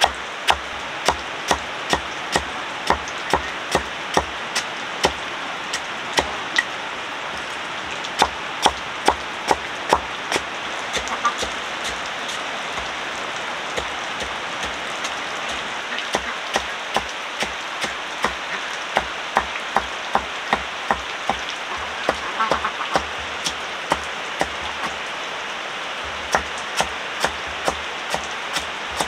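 Steady chopping strikes, about two a second, each with a dull thud under it, pausing briefly a few times, over a steady hiss like rain.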